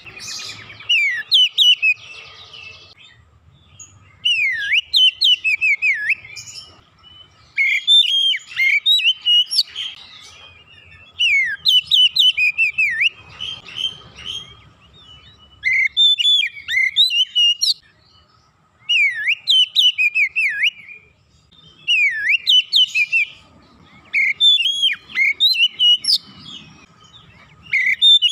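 Oriental magpie-robin singing: varied whistled phrases of quick sweeping notes, delivered in bursts of about two seconds with short pauses between, roughly every three seconds.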